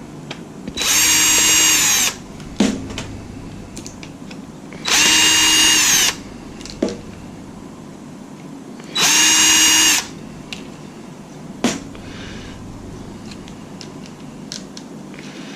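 Power screwdriver whining in three short runs of about a second each, backing screws out of an Atari console's case, with sharp clicks between the runs.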